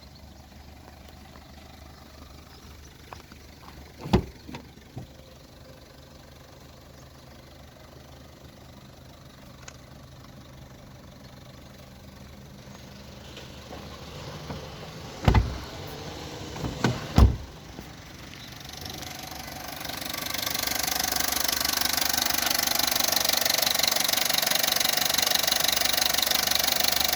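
Opel Corsa D's 1.2 Z12XEP four-cylinder petrol engine idling warm, with a rattling noise that the owner takes for the timing chain. A few sharp knocks come through a hum that starts off low, and about two-thirds of the way in the engine noise becomes much louder and fuller.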